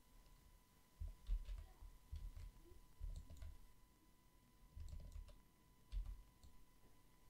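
Faint computer mouse clicks with dull low thumps from the mouse being handled on the desk, coming in several short clusters.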